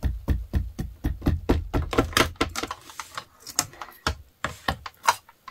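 A Distress Oxide ink pad tapped quickly against a clear stamp in a stamping platform, about six light taps a second, inking the stamp. In the second half the tapping thins out to a few separate knocks.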